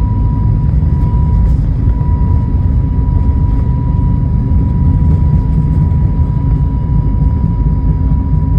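Airliner jet engines at takeoff thrust during the takeoff roll: a loud, steady, deep rumble with a thin high whine held at one pitch.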